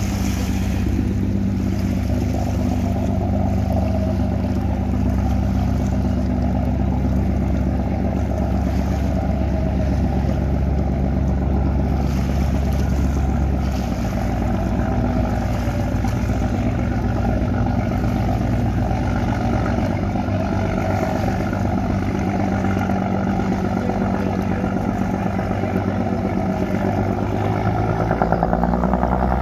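Diesel engines of the express passenger launch Soberanna running under way, a steady low drone. The deepest part of the drone fades about halfway through and returns louder near the end as the boat passes close.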